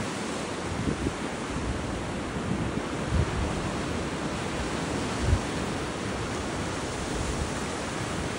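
Small Atlantic waves breaking and washing up a sand beach: a steady rush of surf, with a few short low wind buffets on the microphone.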